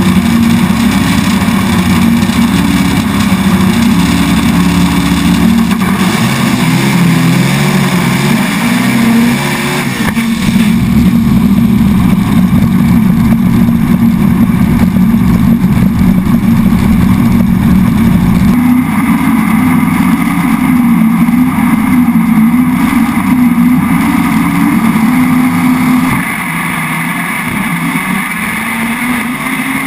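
Naturally aspirated small-block Chevy V8 of a sand-drag jeep running loud, heard close from the open cockpit. Its pitch wavers unevenly, it gets heavier from about ten seconds in, and it drops in level near the end.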